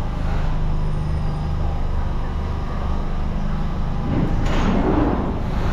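London Underground Jubilee line train standing at the platform with a steady low hum. About four seconds in, its doors and the platform screen doors slide open with a noisy rush.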